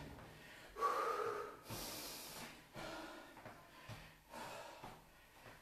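A man breathing hard after a high-intensity exercise interval, with loud, breathy gasps and exhales as he recovers. Soft footfalls come from his steps in place.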